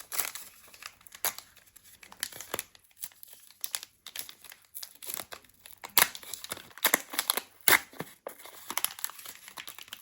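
A trading-card pack wrapper being torn open and handled, with irregular crinkling and tearing and a few sharper crackles about six and eight seconds in.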